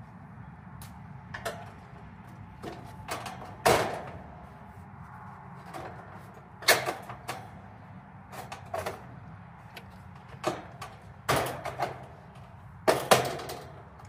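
Tools and parts being handled during hands-on work: irregular sharp knocks and clunks of varying loudness over a steady low hum.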